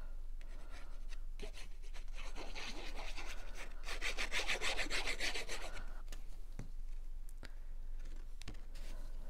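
Fine tip of a liquid glue bottle scraping and rubbing across cardstock as glue is squiggled onto a paper panel, loudest about four to five and a half seconds in. A few light taps follow near the end.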